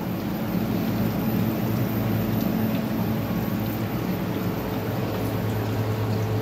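Steady low hum under an even hiss, a constant mechanical drone in a small room, with no change in level.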